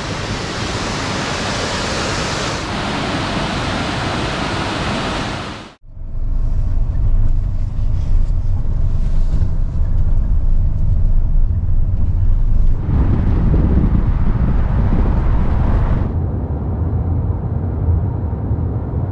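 A steady rush of wind outdoors, cut off abruptly about six seconds in. Then the steady low rumble of a camper van driving on the road.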